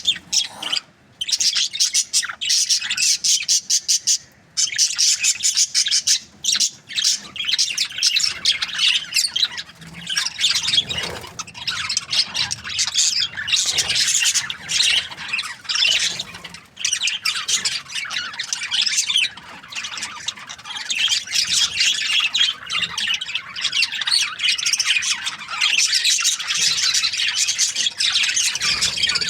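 Budgerigars chirping and squawking in a rapid, near-continuous stream of high calls, with brief pauses about one and four seconds in.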